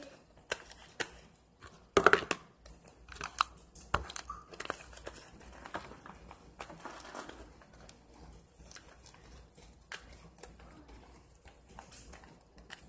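Slime squished and pulled by hand in a plastic tub: an irregular run of sticky clicks and pops, the loudest cluster about two seconds in.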